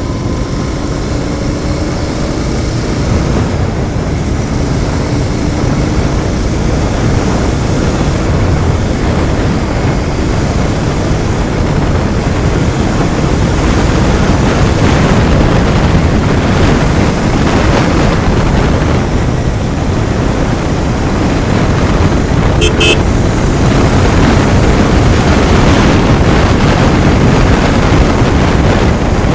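Royal Enfield Continental GT 650's 648 cc parallel-twin engine with its stock exhaust running steadily under way, mixed with heavy wind rush on the microphone. A short horn beep sounds about three-quarters through.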